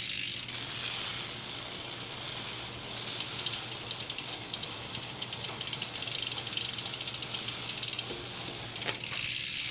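A brush scrubbing a wet bicycle cassette with a steady hiss. From about three seconds in, the rear hub's freewheel ratchet ticks rapidly as the wheel turns.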